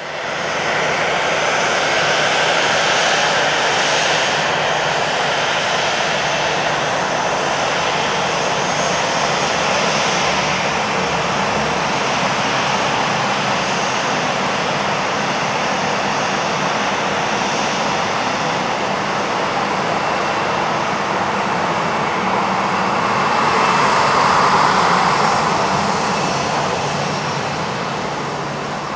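The twin CFM56-7B turbofan engines of a Boeing 737-700 running at taxi power as the airliner turns on the runway to line up for take-off. A steady jet whine over a broad rush swells for a few seconds near the end, as the exhausts swing toward the listener.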